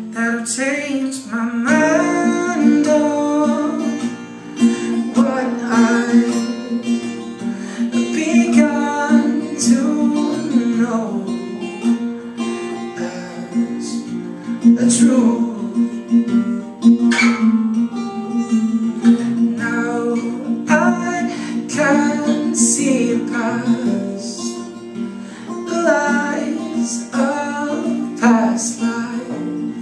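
Acoustic guitar strummed in a steady accompaniment, with a man singing a melody over it.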